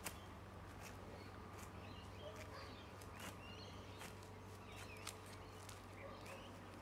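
Faint outdoor ambience: small birds chirping here and there over a low steady hum, with a few light ticks.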